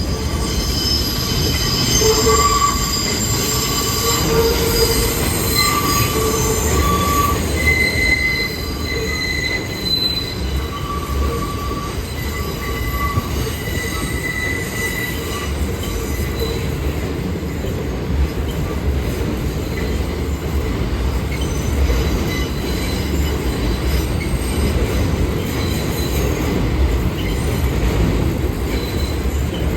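A New York City Subway train running through the station, its steel wheels squealing on the rails in several high tones over a steady low rumble. The squeal is strongest in the first half and fades out about halfway through, leaving the rumble.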